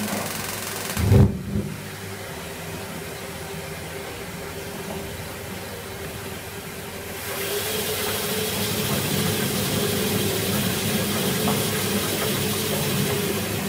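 Tankless gas water heater running with its burner lit: a steady hum and hiss. There is a single thump about a second in. About seven seconds in a louder rushing hiss sets in as the burner flames grow bigger.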